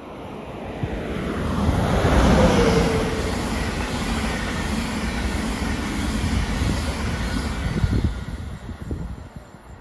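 Railjet passenger train running through at speed behind its electric locomotive: a rush that swells as it nears, with a short whine dropping in pitch as the locomotive passes about two seconds in, then the steady rumble of the coaches going by, fading near the end.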